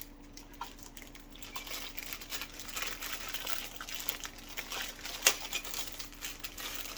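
Small plastic hose fittings and their packaging being handled: irregular crinkling and light clicking, with one sharper click about five seconds in.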